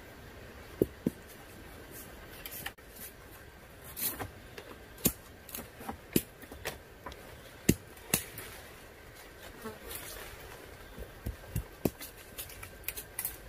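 Insects buzzing steadily at a high pitch, with irregular sharp clicks scattered through, about a dozen of them.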